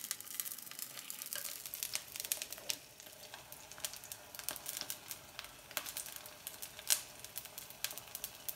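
Egg frying in olive oil in a nonstick pan, sizzling with many small crackles and pops. In the first few seconds a wooden spatula scrapes under the egg as it is folded in half.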